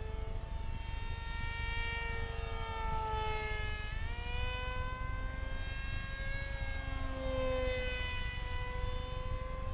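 Electric motor and fan of a radio-controlled F-22 jet whining in flight at about half throttle, its pitch sliding slowly up and down and rising sharply about four seconds in, over a low steady rumble.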